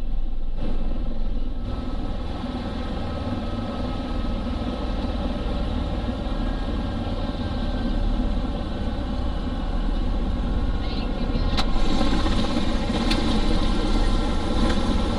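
Tour helicopter running steadily: a low rotor drone with several steady whining tones over it. There is a sharp click about eleven and a half seconds in.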